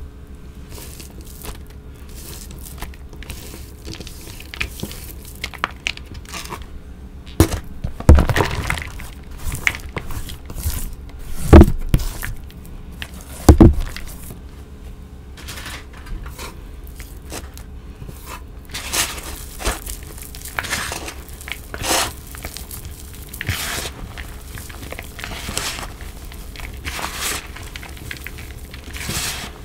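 Dyed gym chalk being scraped off a plastic cutting board into a plastic bowl, with crumbly scraping and three loud knocks in the first half. In the second half, hands squeeze and crush the chalk in the bowl with repeated crumbly crunches.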